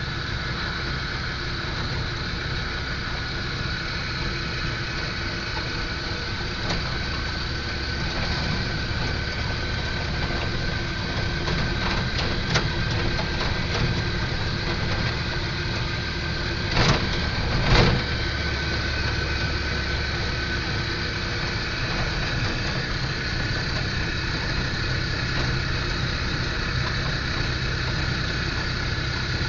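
Car driving along a road, heard from inside the cabin: steady engine and road noise with a constant whine. Two sharp knocks about a second apart a little past the middle.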